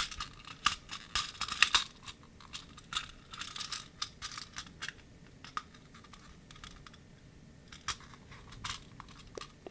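Small plastic clicks and light handling noises as the head of a plastic dinosaur candy dispenser is fitted back onto its body. The clicks come in irregular clusters, thickest in the first couple of seconds, and thin out toward the end.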